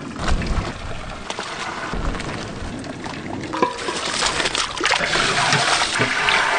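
Boiled instant noodles and their cooking water pouring and splashing from one large aluminium pot into another, a steady watery rush that grows louder toward the end, with a few light metal knocks of the pots.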